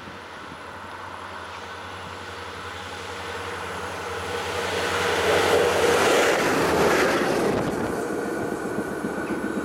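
NS 20 'Kameel' railcar approaching and passing at speed: a steady running sound that grows louder, is loudest about six seconds in as it goes by, then drops away.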